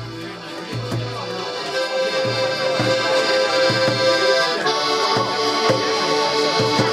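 Live folk music: a melodeon plays sustained reedy chords over short tuba bass notes and light hand-drum strokes, growing fuller and brighter about two seconds in and again near the middle.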